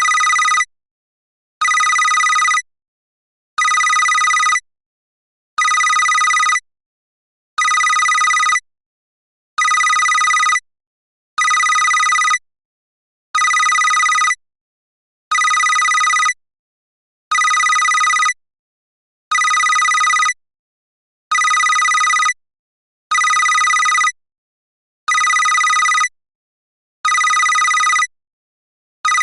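Telephone bell ringtone: a trilling ring of about a second, repeating every two seconds with a pause between, about fifteen rings in all.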